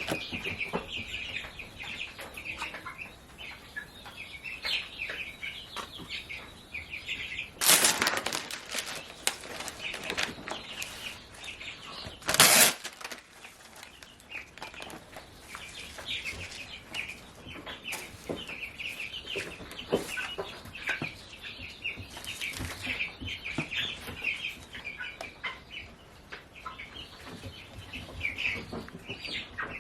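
A brood of baby chicks peeping constantly in quick, high chirps. Twice, near the start of the middle stretch, a brief loud rustling burst cuts through.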